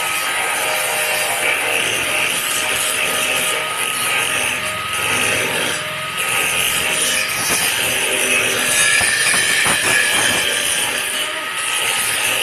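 Electric arc welding on a steel railing: a steady hiss from the welding arc, with a few low knocks around nine to ten seconds in.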